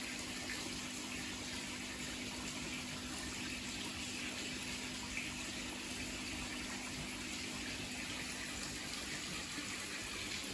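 Water running steadily into a koi fry tank, an even splashing flow with a low steady hum beneath it.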